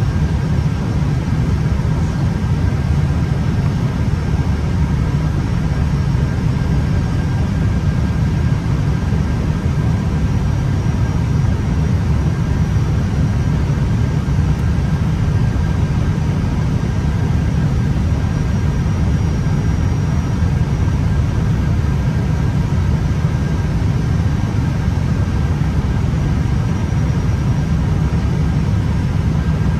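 Airbus A320 cockpit noise in flight: a steady low rumble of airflow and engines, with a few faint steady whines above it.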